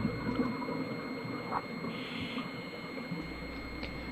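Muffled underwater ambience recorded through a camera housing: a low, even wash of water noise with faint steady high tones.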